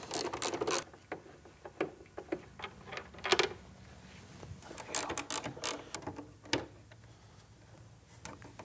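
Small hand ratchet with a T25 Torx bit clicking in several short runs as the fairing's lower screws are backed out.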